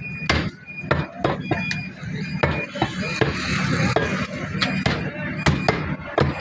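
A butcher's cleaver chopping ox meat, about a dozen sharp, irregularly spaced blows.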